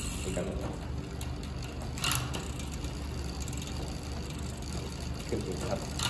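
Road bike drivetrain and rear wheel spinning in a work stand, making a fast, steady ratchet-like ticking. A sharper click comes about two seconds in.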